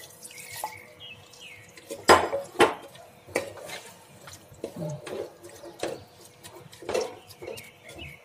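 Wooden spatula stirring wet sliced vegetables in a steel pressure cooker, knocking and scraping against the pot's sides in irregular clicks, the loudest about two seconds in.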